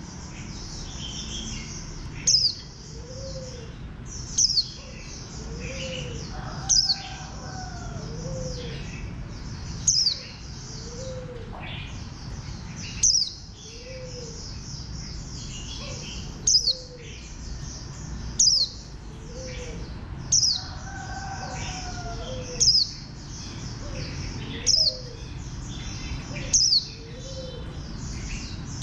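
White-eye (vành khuyên) calling: a sharp, high note sweeping downward repeats about every two seconds over continuous high twittering. Softer, lower arched notes recur between the calls.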